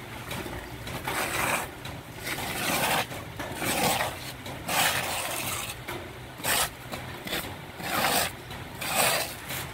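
A litter of puppies eating off a concrete floor: irregular licking and scraping noises, short bursts about once a second.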